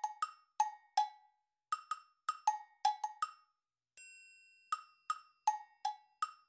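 Background music made of short, knocking wood-block-like notes that hop between a lower and a higher pitch in a bouncy rhythm, about three notes a second. A ringing bell-like chime sounds about four seconds in.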